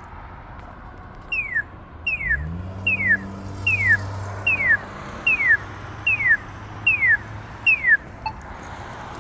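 Polara iNS accessible pedestrian signal sounding its walk tone: nine evenly spaced electronic chirps, each falling in pitch, about one every two-thirds of a second, then stopping. A low steady hum runs under most of them.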